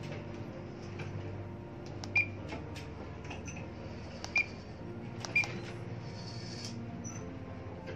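Key beeps of a Furuno GP-32 GPS navigator as its buttons are pressed to change pages: three short, high beeps, the second about two seconds after the first and the third a second later, over a steady low hum.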